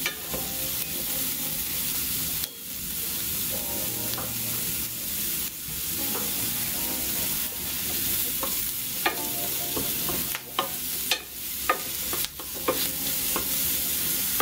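Diced onion, celery, carrot and mushrooms sautéing in butter in a stainless steel frying pan: a steady sizzle, with a wooden spoon stirring and scraping through the vegetables. The spoon gives sharp clicks against the pan, most of them in the second half.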